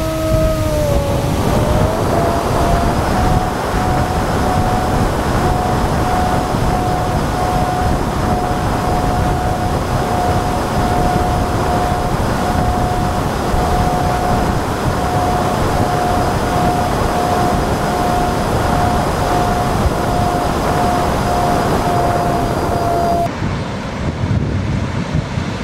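Twin electric motors of an FPV foam plane whining at a steady pitch over wind rush on the onboard microphone; in the first few seconds the pitch dips and climbs back up as the throttle eases and opens again. Near the end the motor whine cuts off suddenly, leaving only wind hiss on the microphone.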